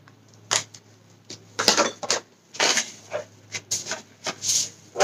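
Shopping items in plastic and cardboard packaging being handled and put down: an irregular run of short rustles and light knocks.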